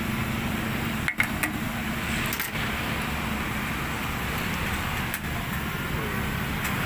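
Steady low engine-like hum with a hiss over it, broken by a few sharp clicks about a second in, again at two and a half seconds and at five seconds.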